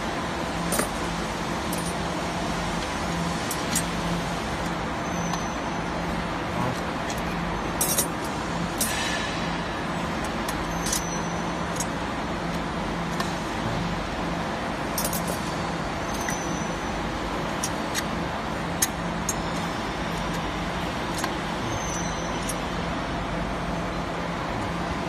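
Steady machinery hum with a low drone, broken by scattered sharp metallic clicks and clinks as bent steel tubes are set into a steel fixture and its clamp is worked.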